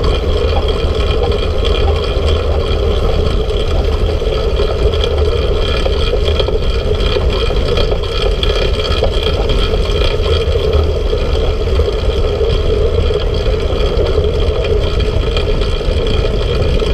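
Steady wind rumble on a handlebar-mounted camera's microphone as a track bike rides laps of a banked velodrome, with an even hum of tyres and drivetrain running throughout.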